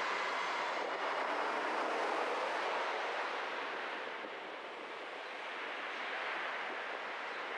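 Steady road noise of a car driving in city traffic: a wash of tyre and wind noise that dips slightly a little past the middle and swells again.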